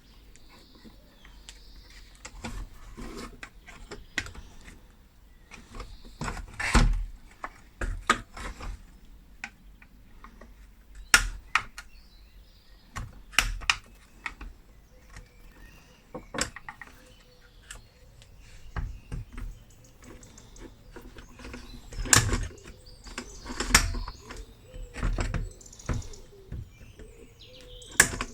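Irregular clicks, taps and clanks of hand tools and small metal parts being handled, with a few sharper knocks louder than the rest.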